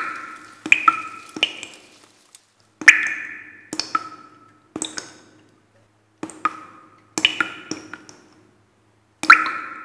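Ice tools striking ice: about fifteen sharp, irregular strikes, each with a short ringing decay at the same pitches, the loudest at the very start, about three seconds in and near the end.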